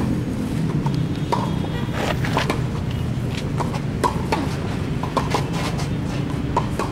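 Tennis balls struck by rackets and bouncing on the court, an irregular series of short, sharp pops, over a steady low background rumble.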